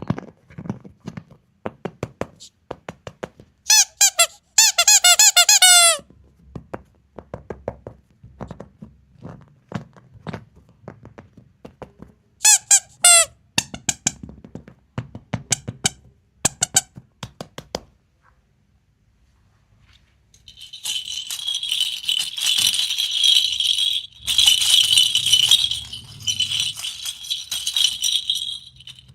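Plastic surprise-egg capsules and candy being handled: light taps and clicks, two bursts of high squeaking about four and twelve seconds in, then a long, loud rattle of small hard pieces near the end.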